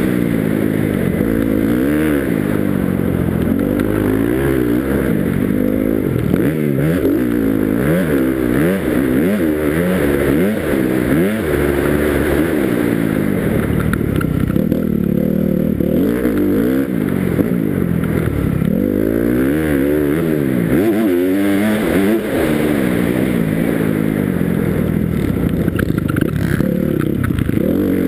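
Motocross dirt bike engine, heard from the rider's helmet, revving up and falling back again and again as the rider opens and closes the throttle and shifts around the track.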